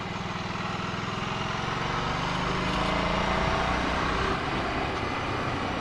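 Ducati Scrambler Sixty2's 399 cc air-cooled L-twin engine under way, pulling harder and climbing slightly in pitch over the first three seconds or so, then easing off a little.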